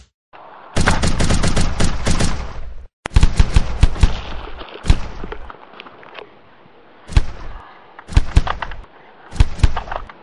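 Edited-in gunfire sound effects: a dense burst of automatic fire about a second in lasting about two seconds, another burst just after three seconds, then single shots and short bursts spaced out over the rest.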